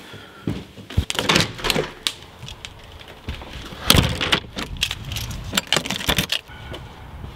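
Handling noise: fabric rustling and small knocks as a bag is gathered up, then a lever door handle being pressed and the door latch clicking, with the sharpest knock about four seconds in.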